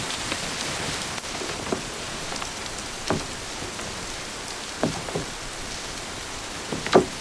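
Steady rain falling, with a few louder drops striking close by, the biggest one near the end.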